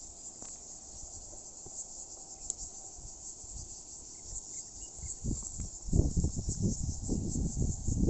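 Steady high-pitched insect chorus filling the background. From about five seconds in, louder irregular low rumbling bursts of noise come in over it.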